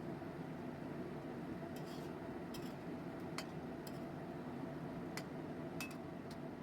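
A kitchen utensil clinking against cookware about six times at irregular intervals, over a steady low hum.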